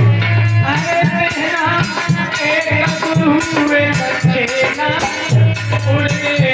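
Devotional Krishna bhajan music: a gliding melody over a steady hand-drum beat with a shaker rattling along. A deep held low note sounds at the start and again about five seconds in.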